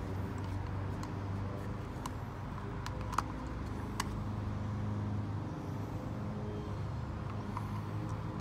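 A steady low mechanical hum, like an idling engine, with a few light clicks a few seconds in.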